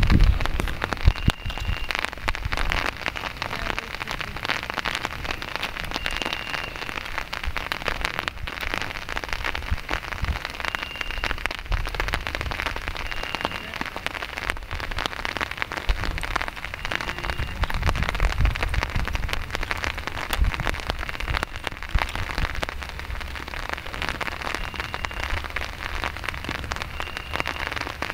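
Steady patter of rain, a dense crackling hiss of drops, with a low rumble underneath at times and a short high peep every few seconds.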